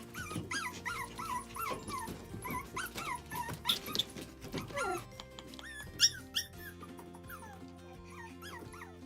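Small dog whining and yipping: a quick run of short, high, rising-and-falling whimpers in the first half, fewer and more spaced out toward the end, over background music.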